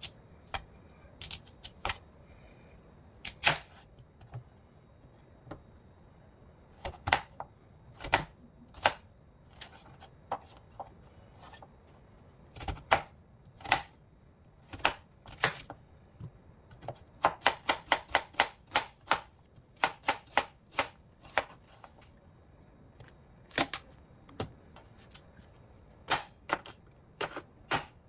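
Kitchen knife chopping food on a cutting board: separate, irregularly spaced chops, with a quicker run of strokes a little past halfway.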